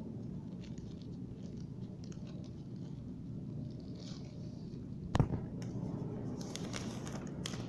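Faint handling of a new phone in its plastic sleeve and protective film: light rustles and ticks over steady background noise, with one sharp click about five seconds in.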